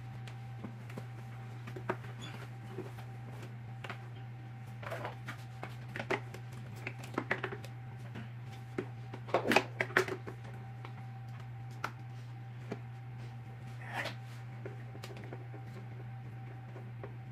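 Plastic parts and padded fabric seat of a Fisher-Price cradle-and-swing being handled and screwed together: scattered clicks, taps and rustles, loudest in a cluster about halfway through. A steady low hum runs underneath.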